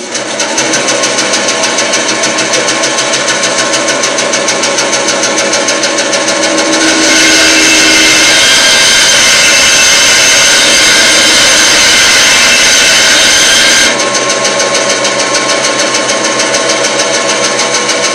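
Vintage Craftsman 12-inch bandsaw switched on for its first test run after a rebuild, starting up and running steadily with a fast even beat. From about seven seconds in, the blade cuts through a piece of wood for about seven seconds, louder and hissier, then the saw runs free again.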